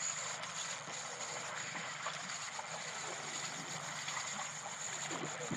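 Water sloshing against the hull of a small fishing boat at sea, a steady wash of noise with a faint steady high-pitched whine over it.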